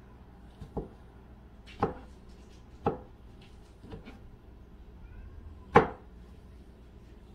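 Kitchen knife slicing button mushrooms on a plastic cutting board: five slow knocks of the blade against the board, roughly a second apart, the last one the loudest.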